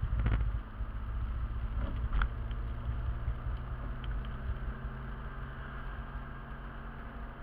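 Steady low rumble of engine and tyre noise inside a moving car, recorded from the windscreen. A few knocks and rattles in the first half second and one more sharp knock about two seconds in.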